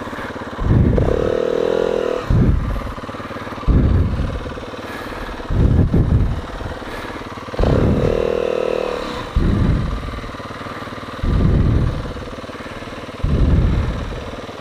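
Off-road vehicle engine revved in repeated throttle bursts, one every one to two seconds, with two longer bursts held at high revs about a second in and near the middle.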